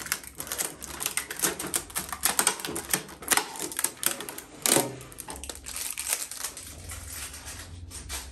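Quick, irregular clicks and crackles, several a second, with a heavier knock about halfway through, from handling a new microwave oven and its packaging during unboxing.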